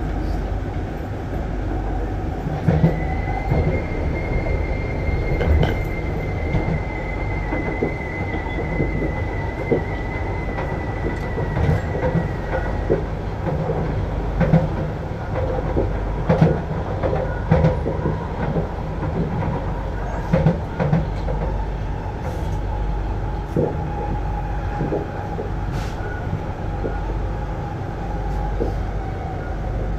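Cabin noise of a C151B metro train running between stations: a steady low rumble from the wheels and running gear, with scattered knocks and clicks. A steady high-pitched whine comes in about three seconds in and stops about ten seconds later, and a fainter lower tone rises later on.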